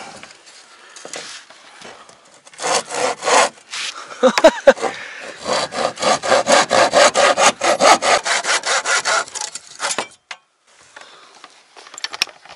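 Handsaw cutting through a wooden roof batten: a few strokes, then a quick, even run of about four strokes a second that stops about ten seconds in.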